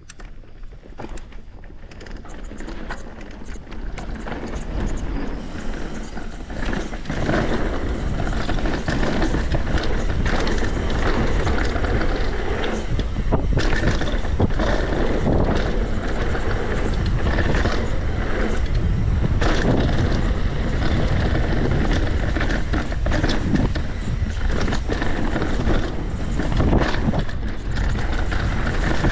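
Santa Cruz V10 downhill mountain bike on a fast trail descent: a steady rush of wind noise and tyre roar on dirt, with scattered knocks and rattles over bumps. It builds over the first several seconds as the bike gathers speed, then holds steady.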